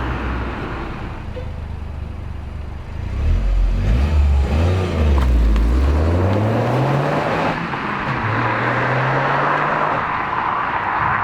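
Toyota GR Yaris's turbocharged three-cylinder engine heard through a Milltek exhaust, running low and steady at first, then accelerating with its note rising, dipping once at a gear change near the middle and rising again.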